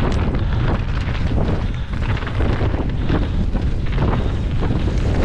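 Wind buffeting the microphone as a steady low rumble, broken by frequent short knocks and rattles, as from a mountain bike rolling over rough, rocky trail.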